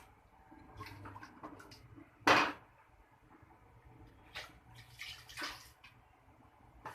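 Spice paste being stir-fried in a pan, with a spatula stirring and scraping it in short noisy strokes. One louder scrape comes a little over two seconds in.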